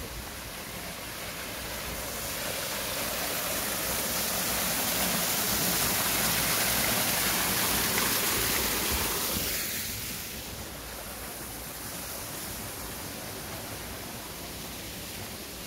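Small waterfall splashing down a mossy rock face: a steady rush of water that grows louder over the first few seconds and falls away after about ten seconds.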